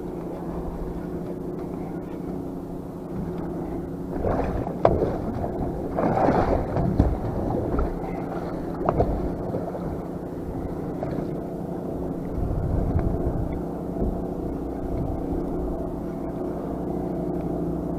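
Boat engine idling with a steady low hum. Several louder bursts of knocking and rustling come between about four and nine seconds in, and again briefly later, as a fish is reeled up to the boat.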